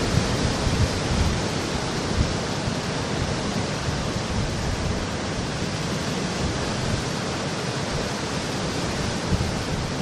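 Sea surf breaking and washing over a rocky shore: a steady rush of foaming water without pause.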